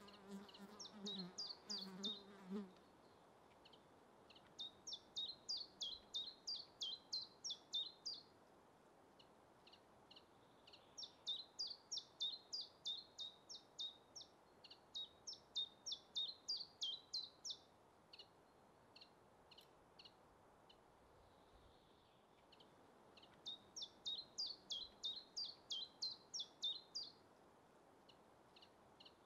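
Common chiffchaff singing: phrases of sharp, high notes at about three a second, each phrase a few seconds long, five of them separated by pauses with a few scattered notes. A low buzz sounds under the first two or three seconds.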